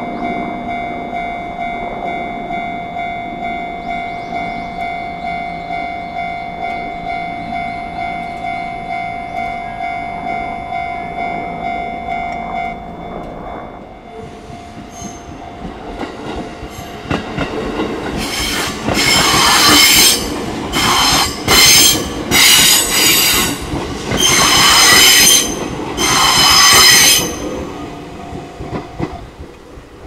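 Japanese level-crossing alarm ringing a rapid repeated electronic ding, which drops in volume after about 13 seconds. From about 16 seconds an electric train on the JR Gotemba Line runs over the crossing, with loud bursts of high metallic screeching that come and go for about ten seconds. The sound then fades near the end.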